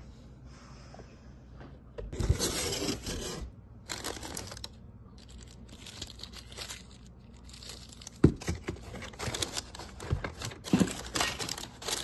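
Crinkling and rustling of crumpled packing paper and cardboard parts boxes being rummaged through in a shipping box, in bursts from about two seconds in, with a few sharp clicks as packages are handled.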